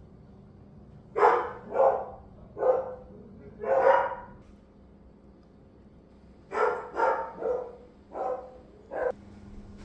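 A dog barking in two groups: four barks, a pause of about two seconds, then five quicker barks.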